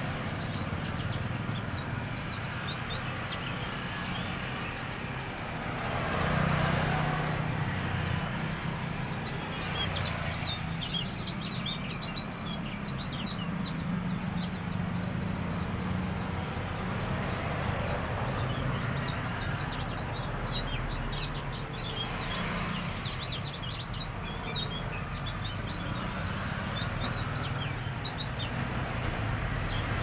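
Caged white-eye (pleci) chirping and twittering in quick series of short high-pitched notes, thickest about a third of the way in and again near the end: a young wild-caught bird starting to sing. A low steady rumble runs underneath.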